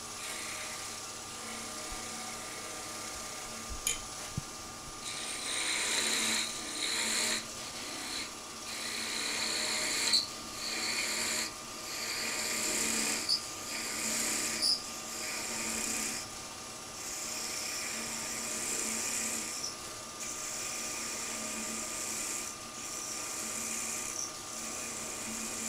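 Wood lathe running with a steady motor hum while a small turning chisel takes light, delicate cuts on a thin spinning spindle of wood. The cuts come as repeated short hissing bursts, roughly one a second, from a few seconds in until about two-thirds of the way through, with a few sharp ticks among them.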